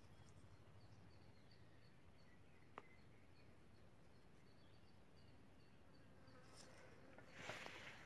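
Near silence: faint outdoor ambience with a high insect chirping, repeated evenly several times a second, a single soft click about three seconds in, and a brief rustle near the end.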